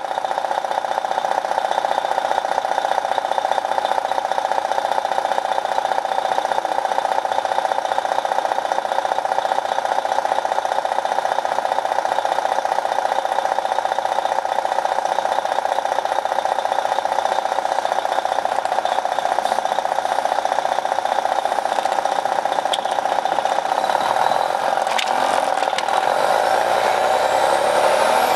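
Detroit Diesel Series 60 engine of an MCI D4500 coach running steadily, heard from inside the bus, with processing that strips out passengers' talk. Its pitch starts to rise near the end as the engine picks up.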